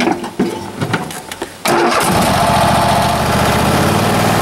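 Craftsman PYT 9000 lawn tractor engine started with the key: a few clicks, then the engine catches about a second and a half in and runs steadily.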